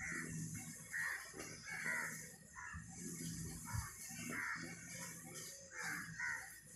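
Short, high animal calls repeating roughly once a second over a low rumble.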